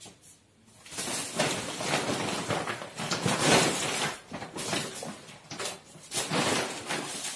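Shopping bag and plastic-wrapped groceries rustling and crinkling as they are handled, in uneven spells starting about a second in.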